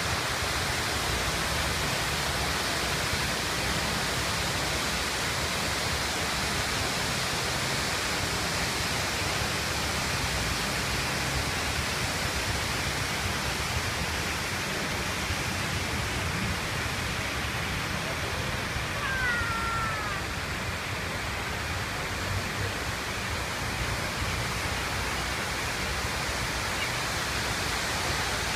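Water of the National September 11 Memorial reflecting pool's waterfall falling down the pool walls: a steady, even rush.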